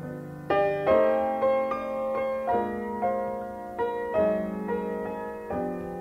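Background piano music, a new note or chord struck every half second to a second.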